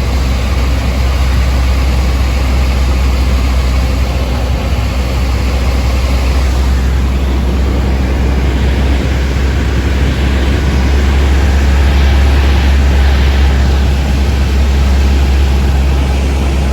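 Cessna 152's four-cylinder engine and propeller running steadily, a loud even drone that swells slightly about two-thirds of the way through.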